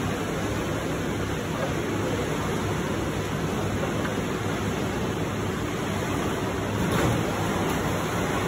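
Steady rushing noise of churning water, with no distinct splashes or other events standing out.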